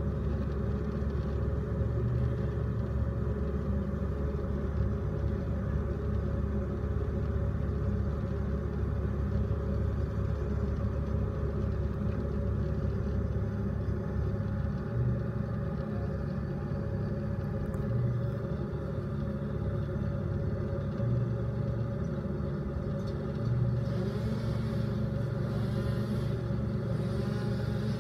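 Tree-service equipment engine running steadily at idle, a low even drone, with a few brief rises in the hum and a slightly louder stretch near the end.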